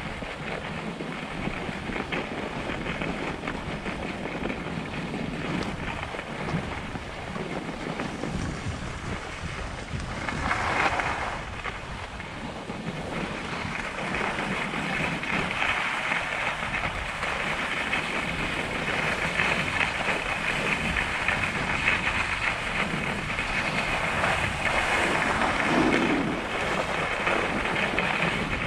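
Skis sliding and scraping over a groomed piste at speed, mixed with wind noise on the microphone. There is a brief louder scrape about ten seconds in, and the sound is a little louder in the second half.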